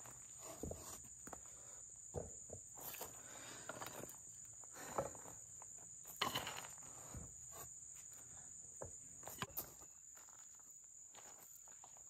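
Faint knocks and scrapes of wood on wood as poplar log slices and wooden stickers are set down and slid into stacks, a few sharper clacks among them. Insects drone steadily behind, a high unbroken tone.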